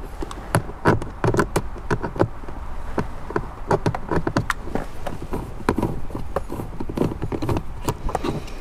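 A screwdriver backing a screw out of plastic interior trim: a run of irregular clicks and ticks, several a second.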